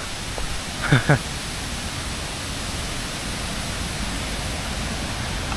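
Steady rush of flowing water, an even hiss with no rhythm. A short voice sound comes about a second in.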